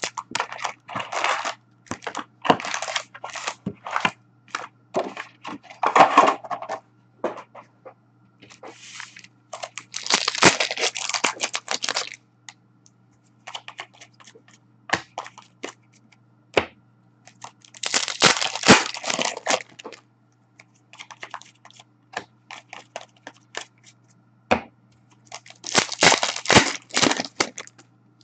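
Foil wrappers of Upper Deck hockey card packs being torn open and crinkled in several bursts a few seconds apart, with sharp clicks and taps from cards being handled and set down on a glass counter in between.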